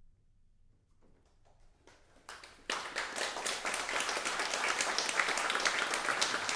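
Near silence, then a few scattered claps about a second in, swelling quickly into full audience applause from about two and a half seconds in.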